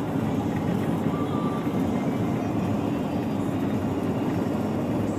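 Steady road and engine noise heard inside a car's cabin while driving on a snow-packed, sanded highway.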